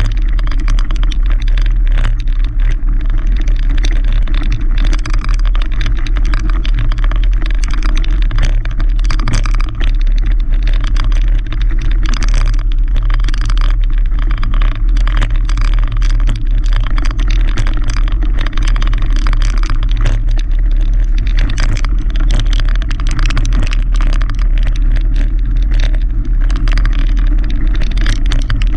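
Mountain bike rolling over a gravel trail: a loud, steady low rumble with a dense, irregular crackle of tyres on loose stones and rattling from the bike.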